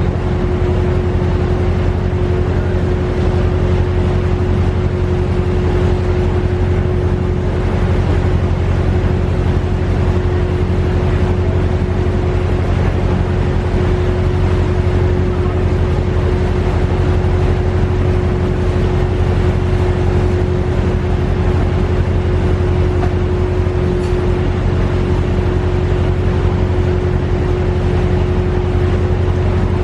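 A vehicle engine running steadily, a constant low drone with a steady hum above it.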